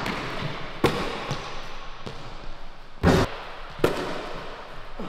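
Basketball bouncing on a hardwood gym floor: a few sharp, irregularly spaced thuds, the loudest about three seconds in.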